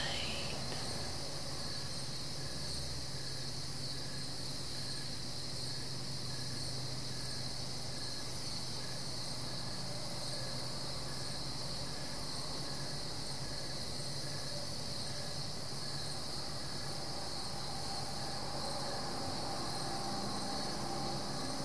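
Crickets chirping in a steady, unbroken high trill, with a faint low hum underneath.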